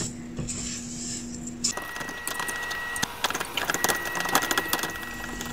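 Silicone spatula stirring and scraping butter and granulated sugar around a nonstick frying pan, sped up, so that from about two seconds in it comes as rapid scratchy clicks.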